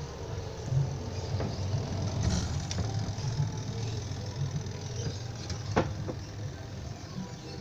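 Washing machine spin-dryer motor running on test after repair, the spin drum turning with a steady low hum and rumble. A few sharp clicks sound over it, the loudest near the end.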